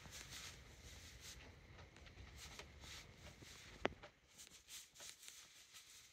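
Near silence with faint rustling of straw bedding as a calf and cow shift their hooves, and one sharp click about four seconds in.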